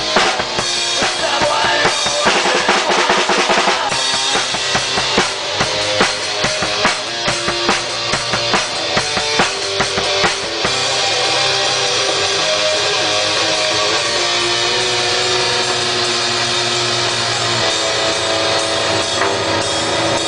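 A rock band playing live at rehearsal: a drum kit with guitar. About ten seconds in, the drumming mostly stops and held notes ring on.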